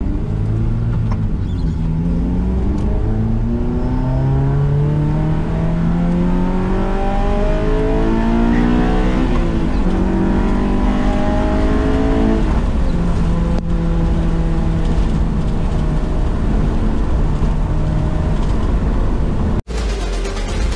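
Honda S2000's four-cylinder engine accelerating, its pitch climbing in several long pulls and then holding steady. The sound cuts off suddenly near the end.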